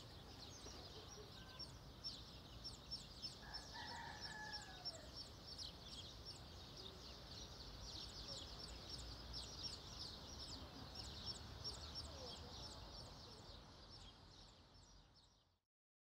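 Faint bird ambience: continuous rapid high chirping, with one longer call like a rooster crowing about four seconds in. It fades out near the end.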